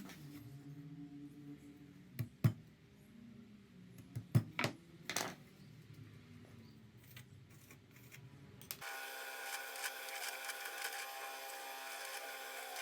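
Workshop sounds: a low hum with a handful of sharp knocks, then, about nine seconds in, an abrupt switch to a steady machine sound with several held tones.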